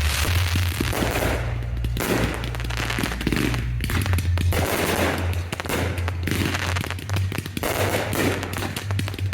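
Professional fireworks display going off as a dense, continuous barrage of rapid bursts and crackling shells.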